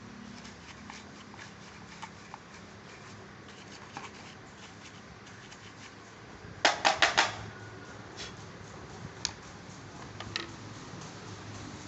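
Scattered light clicks and knocks of parts and hand tools being handled during a spray gun repair, with a quick run of four or five sharp clicks about seven seconds in.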